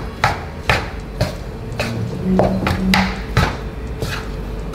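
A spatula scraping and knocking against a frying pan as fried rice is stir-fried, about two strokes a second.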